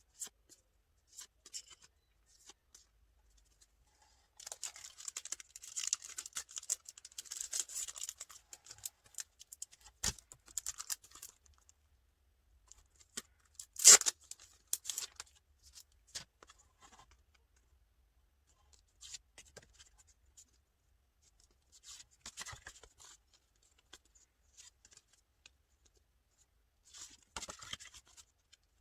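Packaging being opened by hand: bursts of tearing and rustling, with one sharp snap about halfway through.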